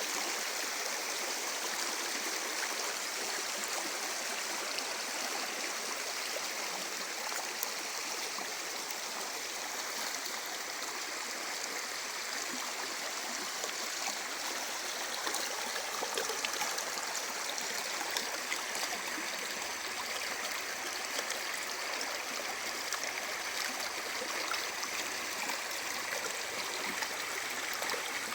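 Small river flowing over stones, a steady rushing and gurgling with little splashes throughout.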